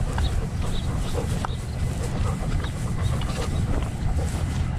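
Labrador retriever walking with a harness-mounted camera: a steady low rumble of the dog's body movement and wind on the microphone, with faint scattered ticks of its footsteps on grass and dirt.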